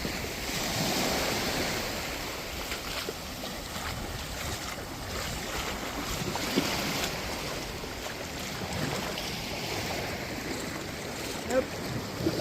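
Sea waves washing against a fishing pier, with wind buffeting the microphone; the wash swells and eases in a noisy rush. A couple of short sharp knocks come about midway and near the end.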